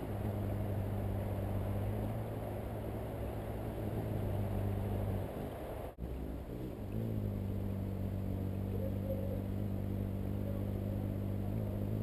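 Anna's hummingbird's wings humming as it hovers right at the feeder, a steady low hum. The hum breaks off for about a second and a half around the middle, then resumes.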